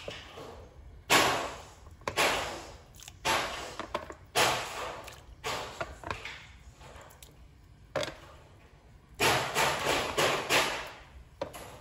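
Toys being smashed and banged about, a loud banging of sudden crashes roughly once a second, each fading quickly, with a quicker run of crashes near the end.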